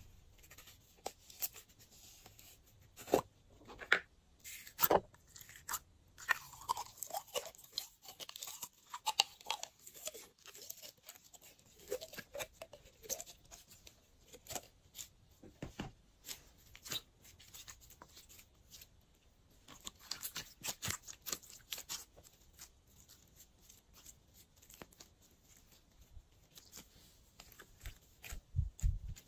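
Glossy slime being pressed and kneaded by hand with random add-ins mixed through it, giving irregular sticky clicks, pops and crackles, with a few brief squelchy squeaks.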